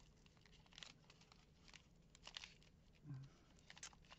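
Faint crinkling and rustling of a thin plastic bead bag, in short scattered bursts and clicks, as fingers pick at the tightly wrapped packaging to open it.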